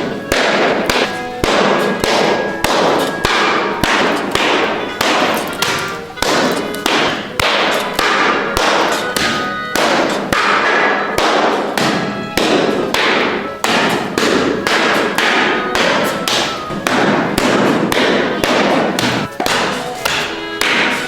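A production machine knocking in a steady rhythm, about two sharp strokes a second.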